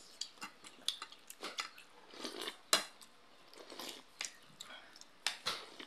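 Spoon clinking and scraping against a plate, with light knocks of dishes: a string of short, irregular clinks, the loudest about halfway through.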